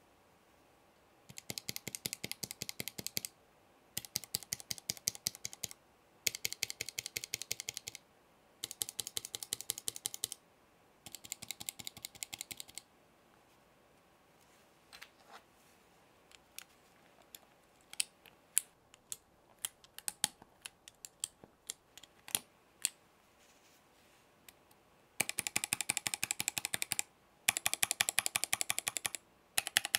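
Typing sound test on a ZoomTKL mechanical keyboard with an FR4 plate and GMK keycaps, its switches stock and unlubricated. Five short runs of rapid keystrokes come first, then about ten seconds of scattered single key presses, then rapid runs again near the end.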